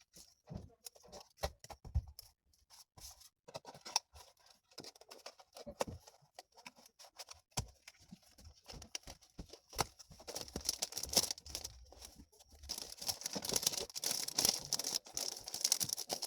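Handling paper and plastic sticker material: scattered light taps and clicks, becoming dense rustling and crinkling from about ten seconds in, heaviest near the end.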